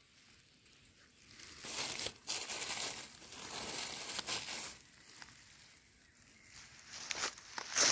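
Dry fallen leaves crackling and crinkling as a hand pushes the leaf litter aside around a porcini mushroom. A longer spell of about three and a half seconds is followed near the end by a shorter one with a sharp crack.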